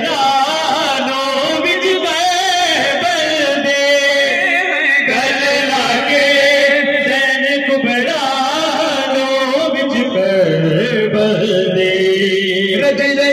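Male voices chanting a noha, a Shia lament sung without instruments, the melody carried without a break.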